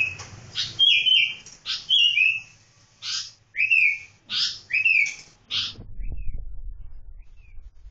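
Sooty-headed bulbul calling, a quick series of short chirping notes at about two a second that stop near the end, after which only a low rumbling noise remains.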